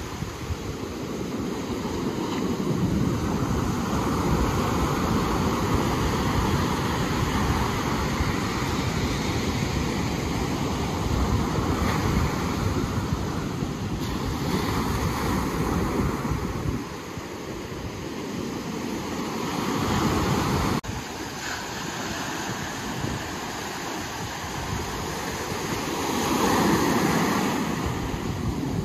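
Ocean surf: waves breaking and washing in, the rush swelling and easing every several seconds, loudest near the end, with wind rumbling on the microphone.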